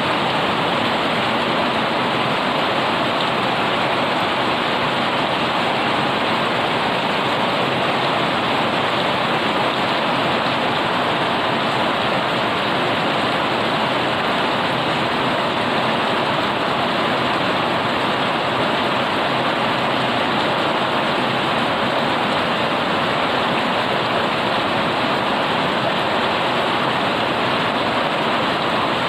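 Heavy rain falling steadily on a paved yard, leaves and puddles: a loud, even hiss that does not let up.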